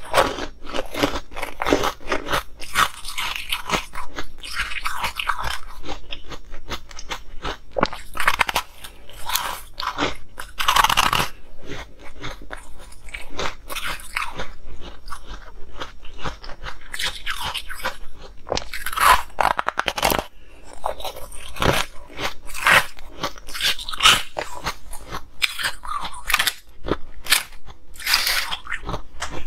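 Close-miked crunching and chewing of moulded coloured ice, with sharp bites and crunches coming irregularly and in louder clusters.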